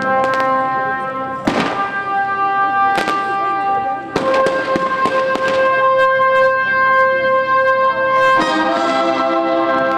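Fireworks cracking and banging over music with long held chords, for a pyromusical display. The sharpest bangs come about one and a half and four seconds in, and the chord changes about four and eight seconds in.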